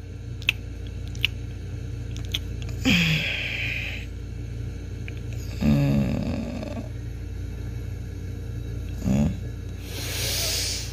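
A person makes three short, low vocal sounds that fall in pitch, about three seconds apart, over a steady low hum, with a few faint clicks early on.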